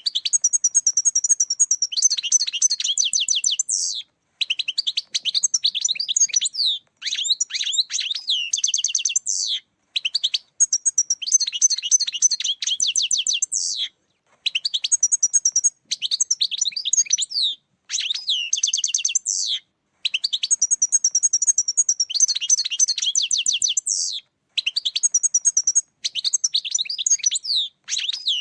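European goldfinch singing: fast, tinkling twitters and trills in phrases of about two to four seconds, broken by short gaps.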